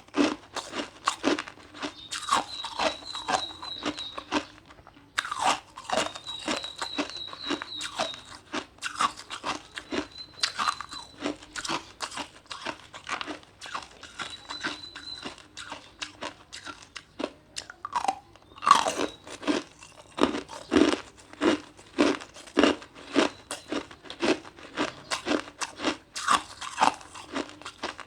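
Ice being bitten and chewed: dense, irregular crunching. Short high bird trills come in several times during the first half.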